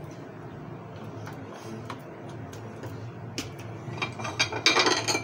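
Kitchenware being handled on a counter: scattered light clicks and knocks, then a dense run of rapid scraping, crackling clicks in the last second or so, over a low steady hum.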